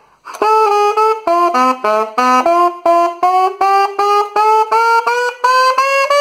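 Alto saxophone played solo: a short phrase of separately tongued notes, then an ascending chromatic scale on D, climbing in half steps one note at a time.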